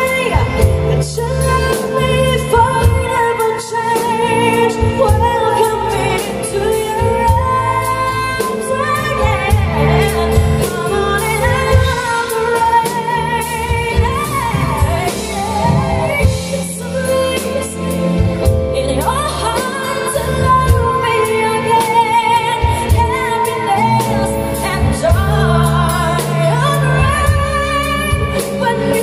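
A woman singing live through a handheld microphone, backed by a band with drums and cymbals, holding long high notes with a wide vibrato.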